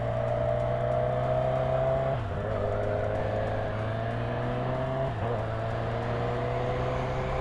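Honda CB1000R inline-four motorcycle engine pulling under acceleration, heard from the rider's seat. Its pitch climbs steadily and dips briefly at an upshift about two seconds in, and again about five seconds in.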